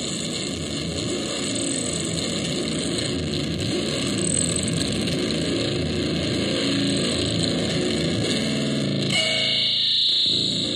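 Homemade experimental noise machine, the Bungler Re-Contortor, putting out loud, distorted electronic noise that shifts as its knobs are worked. About nine seconds in the sound changes abruptly to a steadier pitched buzz with a bright high hiss.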